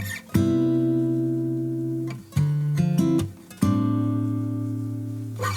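Background music: an acoustic guitar strumming chords, each chord held and let ring for a second or more, with short gaps between.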